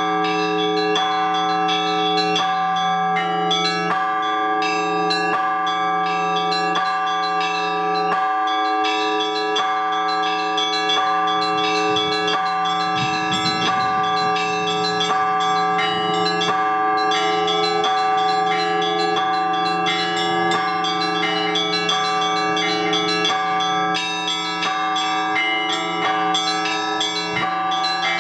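Orthodox church bells rung by hand: small bells struck in a quick repeating pattern, several strikes a second, over the sustained hum of a larger, deeper bell.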